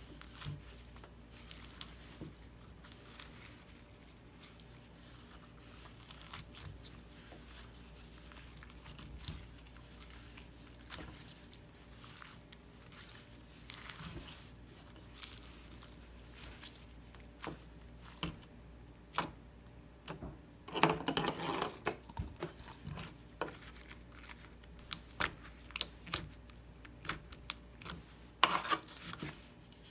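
Red slime being stretched, squeezed and pulled apart by hand, giving sticky crackling and many short popping clicks. Louder, denser crackling comes in a burst about two-thirds through and again near the end.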